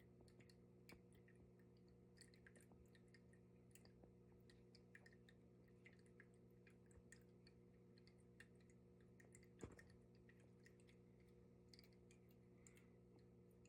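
Near silence: a very faint tabletop waterfall fountain, only scattered tiny drips and ticks, over a steady low hum, with one slightly louder click about ten seconds in.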